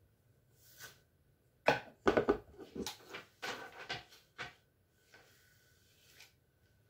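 Hard knocks and a rattling clatter of hair tools being put down and picked up on a bathroom counter, a quick run of sharp hits about two seconds in that tails off into lighter taps.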